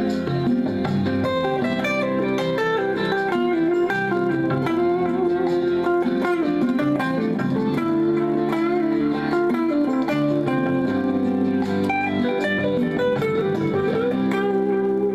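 Guitar playing a melody over a recorded backing track.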